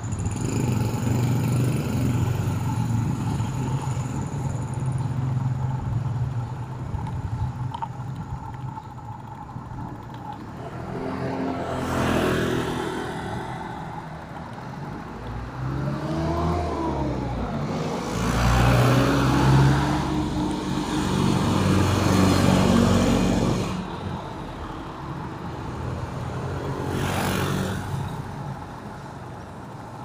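City street traffic: engines running close by with a steady low hum, several vehicles passing one after another, and one engine revving up and back down about halfway through.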